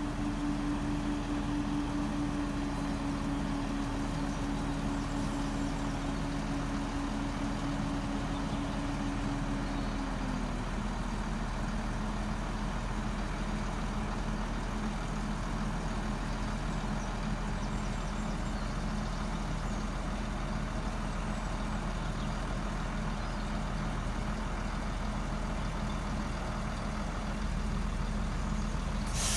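Diesel train engine ticking over steadily, a low drone with a strong tone that drops slightly about ten seconds in.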